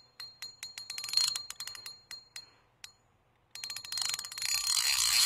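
Spinning reel, freshly cleaned, oiled and greased, being cranked: its rotor mechanism clicks evenly at about six clicks a second, stops briefly, then the handle is spun fast with rapid clicking and a whirring from the gears.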